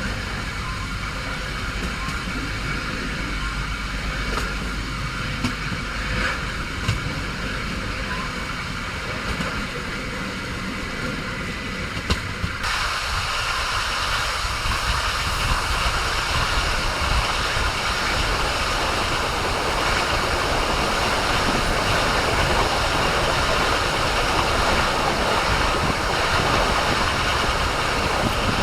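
Train running on the rails: a steady rumbling rush with a few sharp clicks. About twelve seconds in it switches abruptly to a louder, hissier rush.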